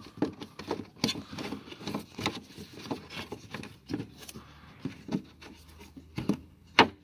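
Irregular clicks, knocks and rubbing from a gloved hand handling plastic parts behind the headlamp while refitting the parking-light bulb holder, with a sharper click near the end.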